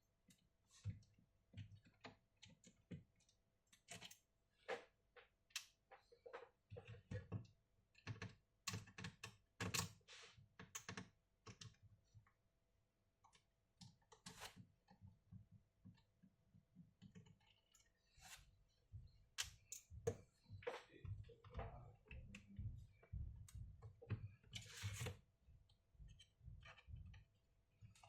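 Faint, irregular light clicks and taps, scattered and a little more frequent in the last third.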